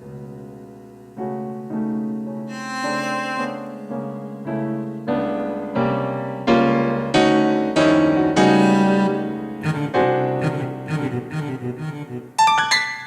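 Keyboard improvisation: sustained chords that grow louder from about a second in, turning into quicker, denser notes with high notes near the end.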